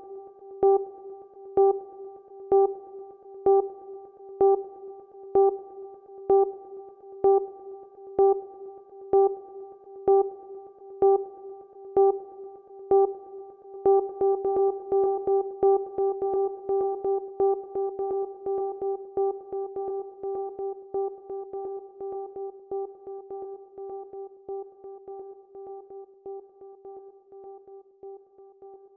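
Background electronic music: one held note pulsing about once a second, pulsing faster from about halfway, then slowly fading out toward the end.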